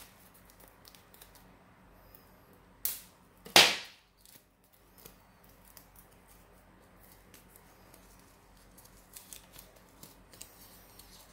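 A steel kitchen knife knocking against glass: one sharp click, then a much louder short clatter about half a second later, with soft handling of paper and plastic wrapping otherwise.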